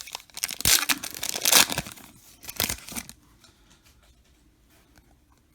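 Foil wrapper of a trading card pack being torn open and crinkled, in busy crackling bursts for about three seconds, then stopping.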